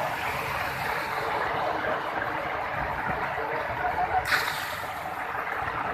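Heavy rain falling steadily on a flooded street, making an even hiss. About four seconds in, a brighter, sharper splashing joins it: runoff pouring off the edge of an awning close by.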